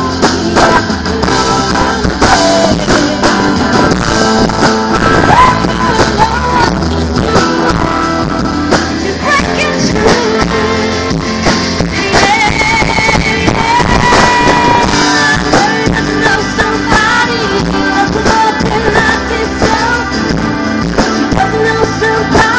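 Live pop-rock band playing loudly through a PA: strummed acoustic guitar, electric guitar, bass guitar and drums, with a wavering lead melody on top. The sound is harsh and distorted, as recorded on a phone standing next to the speakers.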